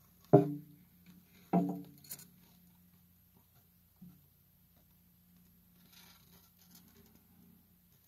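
Two sharp knocks about a second apart, each with a short ringing tail, then a smaller click and a faint knock a couple of seconds later, over a faint steady low hum.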